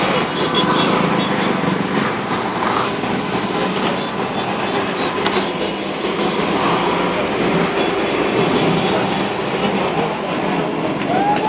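Road traffic passing close by: buses, including a long articulated metrobus, and cars going past in a steady, continuous rumble of engines and tyres.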